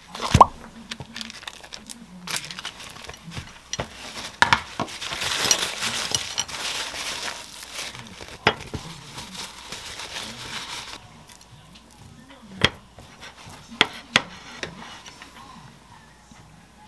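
Paper towel crinkling and rustling as it is pressed onto raw beef slices to blot off the blood. It is preceded by a sharp click as a plastic food container is handled and opened, and followed later by a few light clicks and taps from the plate and squeeze bottle.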